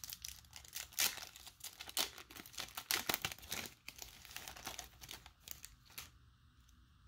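Wrapper of a 1990 Score NFL football card pack being torn open by hand: crinkling and tearing crackles that go on for about six seconds and stop near the end as the cards come free.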